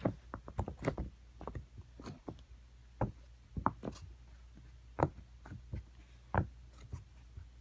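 Silicone pop-it fidget toy being popped with the fingers: a long, irregular run of short soft pops as the bubbles are pressed through, some louder than others.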